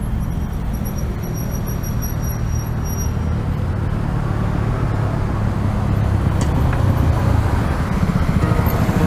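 Wind rumbling on the microphone together with road and traffic noise while riding an electric bicycle on a road, steady throughout. A faint thin high whine runs for the first few seconds.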